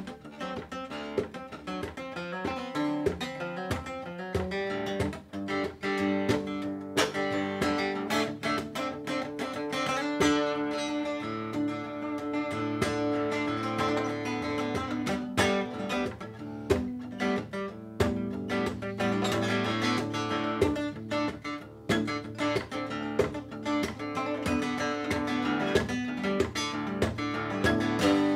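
Cole Clark cutaway acoustic guitar strummed briskly, with chords ringing under many sharp percussive strokes of the strumming hand.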